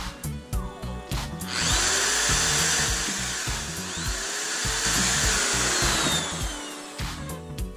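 Corded electric drill boring through the plastic backrest of a monoblock chair, running steadily and stopping about six seconds in. Background music with a steady beat plays underneath.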